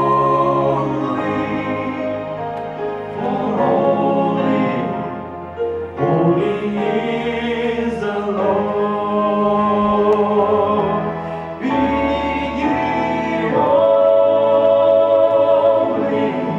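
Male vocal group of five singing a gospel song in harmony into microphones, holding long chords that change every second or two.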